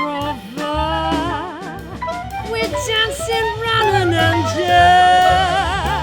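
Jazz-style background song: a melody line with wide vibrato over a band with a steady bass.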